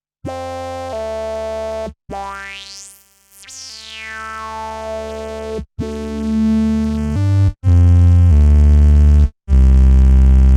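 MS-20-type analog synthesizer playing held notes: a whistling resonant tone sweeps up and then back down, followed by heavy low bass notes with short breaks between them.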